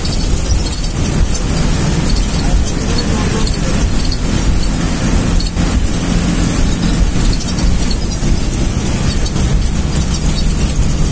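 Vehicle engine and road noise heard from inside the cab while driving: a steady low engine drone over a constant rush of tyre and wind noise.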